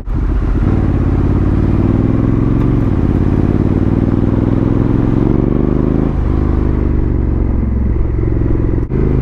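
Honda Africa Twin CRF1100L's parallel-twin engine accelerating through the gears: the pitch rises, drops at a gear change about three seconds in, rises again, drops at a second shift about six seconds in, then holds steady.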